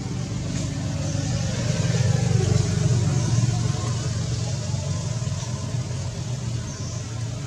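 A motor vehicle's engine passing close by: a low rumble that grows louder over the first two or three seconds, then eases off.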